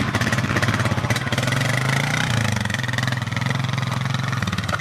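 Small off-road motorbike engine idling steadily, its pitch dipping briefly a little after two seconds in and then recovering.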